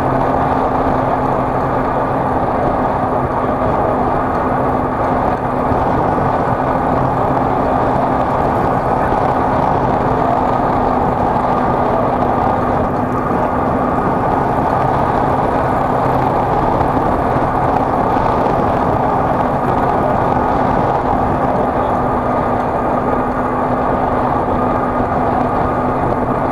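A road vehicle travelling at a steady speed: a constant engine hum with a dense rushing of road and wind noise, unchanging throughout.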